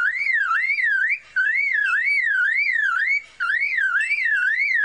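Superb lyrebird mimicking an electronic siren: a whistle-like wail rising and falling about two and a half times a second, in three runs broken by brief gaps.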